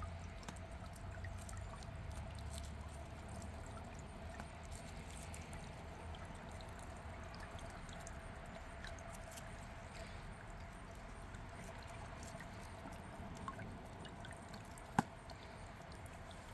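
Small solar water fountain trickling faintly and steadily, with one sharp click near the end.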